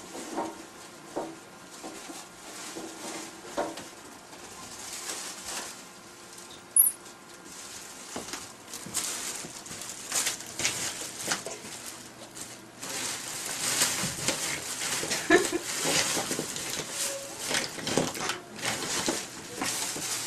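Plastic bag rustling and crinkling as it is handled and unwrapped, with scattered knocks and clatter of objects being moved. The crackling grows denser and louder about two-thirds of the way through, as bones are taken out of the bag.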